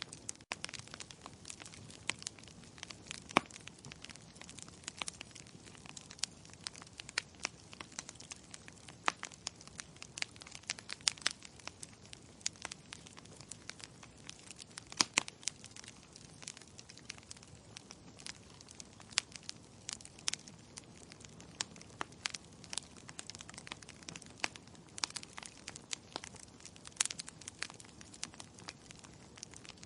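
Wood fire in a fireplace crackling: irregular sharp pops and snaps of burning logs, several a second, over a soft steady hiss.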